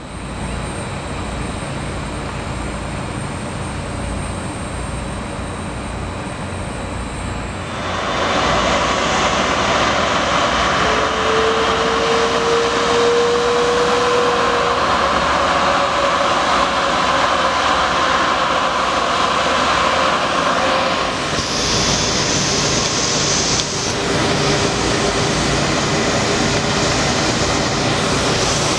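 Jet airliner engines running as the aircraft taxis, a steady rush that grows louder about eight seconds in, with a faint whine rising slightly in pitch a few seconds later.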